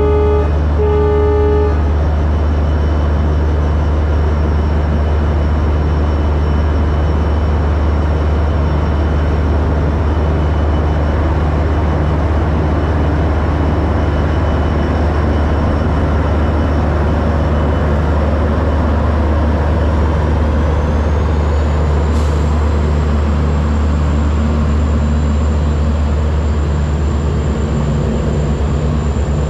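Indian Railways WDP4D diesel locomotive sounding its horn, the blast breaking off and sounding once more for about a second near the start. Then the locomotive's two-stroke EMD engine and its passenger coaches roll past with a loud, steady low rumble.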